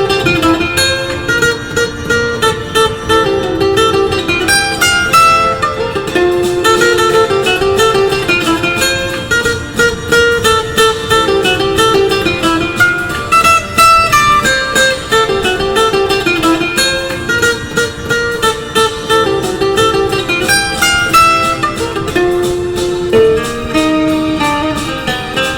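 Background music: fast plucked acoustic guitar in a flamenco style.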